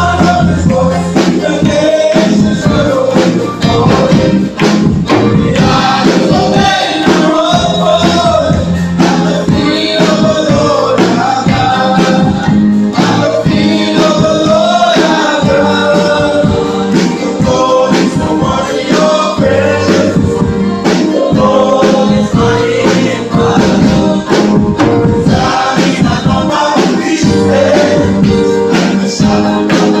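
A gospel vocal group singing a worship song in harmony over microphones, backed by a drum kit keeping a steady beat.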